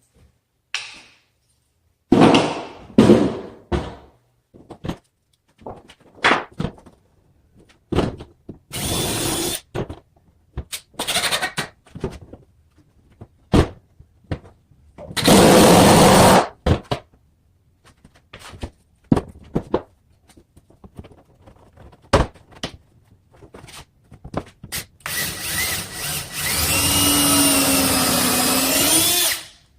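Power drill drilling pilot holes and driving screws to join kitchen base cabinets together, running in short bursts among knocks and clicks. There is a longer run about halfway through and a long run near the end whose pitch wavers.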